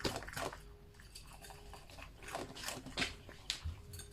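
A dog eating dry kibble, crunching and chewing in irregular bursts.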